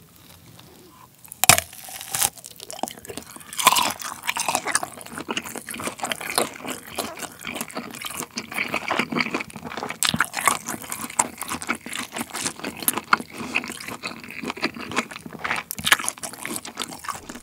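Close-miked bite into a kielbasa sausage, the casing snapping sharply about a second and a half in, followed by steady wet, juicy chewing of the sausage.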